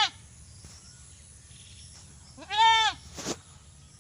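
A goat bleating: the end of one bleat right at the start, then a single bleat of about half a second, rising and then falling in pitch, about two and a half seconds in. A short, breathy burst of noise follows it.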